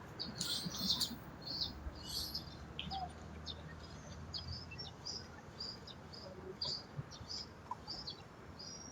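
Small birds chirping: many short, high chirps at irregular intervals, with no calls standing out.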